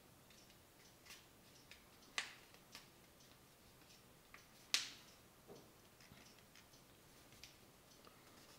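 Sheet of paper being folded and its crease pressed by hand: scattered faint crinkles and ticks, with two sharper clicks about two seconds in and near the middle.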